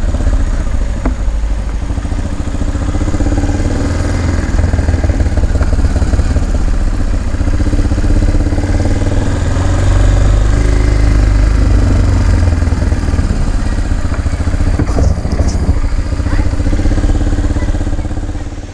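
Motorcycle engine running steadily at low revs, a close, pulsing rumble that cuts off suddenly near the end.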